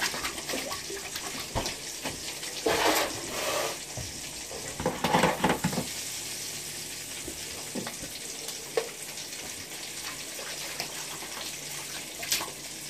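Sausages sizzling in a frying pan on an electric stove, a steady hiss, with clatters of dishes about three and five seconds in.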